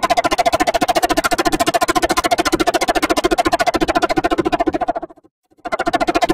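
Logo intro audio put through a 'car wash' effect: a steady sound with two held pitches, chopped into a fast, even stutter. It cuts out for about half a second about five seconds in, then starts again the same way.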